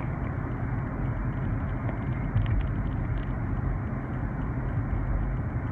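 Steady low rumble of a car's road and engine noise heard from inside the cabin while driving at speed.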